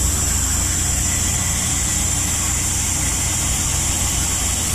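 Steady low rumble of a shrimp trawler's engine and deck machinery, with an even high hiss over it that cuts off near the end.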